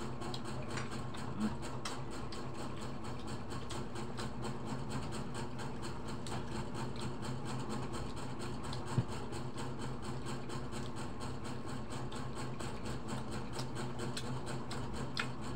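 A steady low machine hum made of several fixed tones, with a single sharp knock about nine seconds in.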